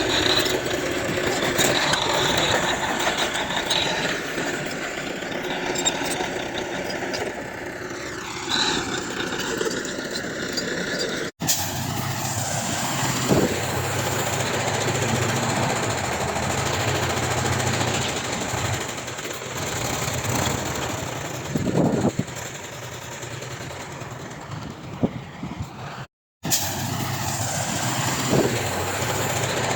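Diesel engines of a bulldozer and dump trucks running steadily at work. The sound cuts out sharply twice, briefly each time.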